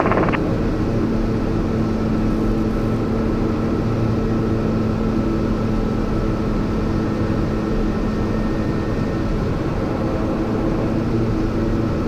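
Piper Meridian M500's Pratt & Whitney PT6A turboprop running steadily on the ground: a constant drone with a steady high whine, unchanging in pitch.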